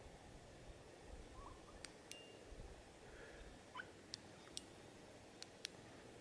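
Quiet faint clicks of flashlight switches being pressed, mostly in close pairs a quarter-second apart, repeated several times as the lights are turned on and off.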